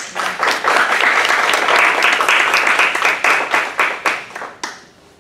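Audience applauding, starting suddenly and thinning out to a few last claps after about four and a half seconds.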